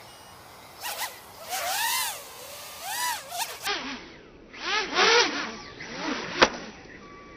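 The brushless motors and propellers of an FPV racing quadcopter whine from a distance in a few swells, the pitch rising and then falling as the throttle is punched through flips. A single sharp knock comes about six and a half seconds in.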